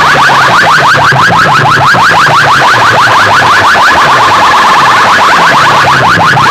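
Rapid electronic siren-like chirps, each a quick rising sweep, about seven a second, played very loud through a DJ competition sound system's loudspeaker boxes, with a stepping low bass tone underneath.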